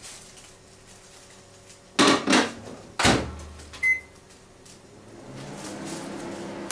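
Panasonic microwave oven being loaded and started: a few clunks as the door is shut about two to three seconds in, one short button beep, then the oven starts up and hums steadily.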